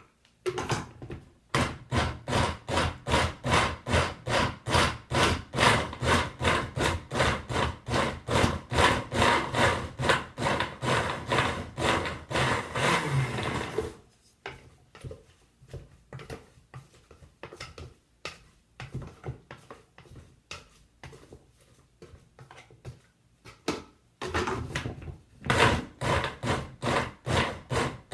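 Kitchen blender run on its pulse setting, its blades chopping cubes of clump-foliage material in water, in a rapid string of short bursts. The bursts are loud for the first half, grow softer through the middle, and are loud again near the end.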